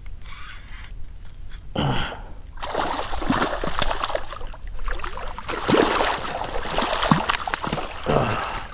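A small hooked redfish thrashing and splashing at the water's surface beside a kayak, with a rapid run of splashes starting about two and a half seconds in and easing off as the fish is scooped into a landing net near the end.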